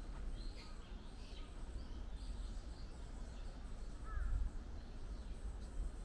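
Small forest birds chirping in short, scattered high calls, with one louder, lower call about four seconds in, over a steady low rumble.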